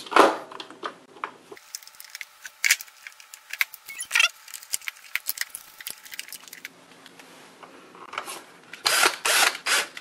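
Scattered light plastic clicks and knocks as battery packs and their wire connectors are pushed into a robot vacuum's battery bays. About eight seconds in comes a denser rattle and clatter of plastic as the battery cover is laid over the bay.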